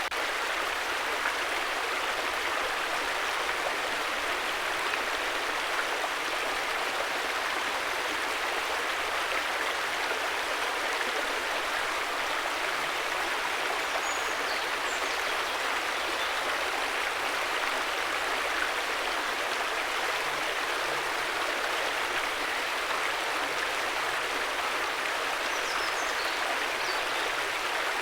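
River water flowing in a steady, even rush, with a few faint, short high chirps about halfway through and near the end.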